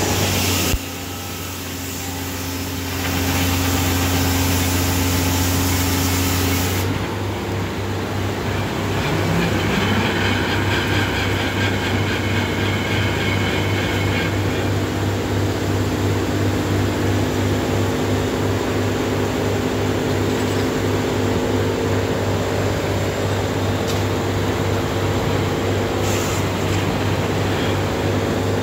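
Sawmill machinery running: a steady low hum throughout, with a loud hiss over the first seven seconds that then stops. A rattling, higher whine joins for a few seconds around ten seconds in.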